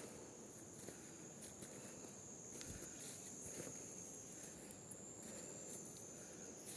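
Insects calling in one steady, continuous high-pitched tone, with scattered soft footsteps and light clicks on the trail.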